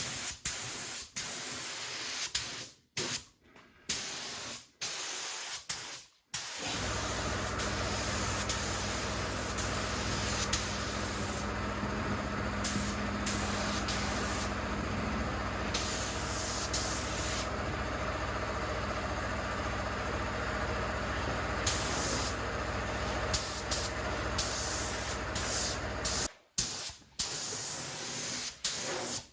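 Compressed-air paint spray gun laying down a full coat of paint: hissing in short bursts at first, then one long unbroken pass from about six seconds in with a low steady hum underneath, then short bursts again near the end.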